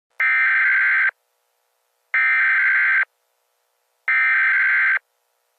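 Emergency Alert System SAME header: three bursts of digital data tones, each about a second long and about two seconds apart, marking the start of a new emergency alert.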